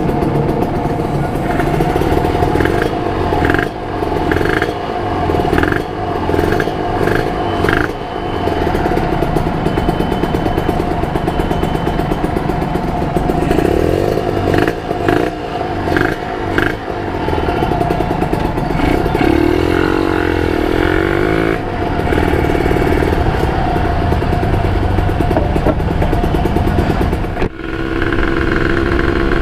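Kawasaki Ninja RR's 150 cc single-cylinder two-stroke engine running and revving, its pitch rising and falling several times.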